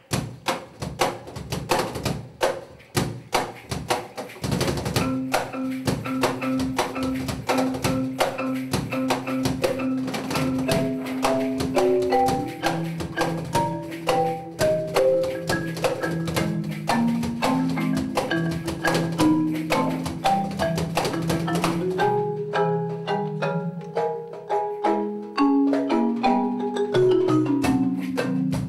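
Live marimba and drum-kit duo. Drums and cymbals play busily from the start, and the marimba comes in about five seconds in with held low notes under a moving melody. The drums drop back for a few seconds near the end, leaving mostly marimba, then pick up again.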